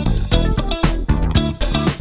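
Electronic music track with a steady beat, a plucked guitar-like line and bass.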